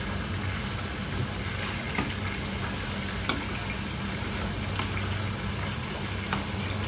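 Steady hiss of food cooking in a pot on the stove over a low hum, with a few light clinks of a ceramic bowl being handled.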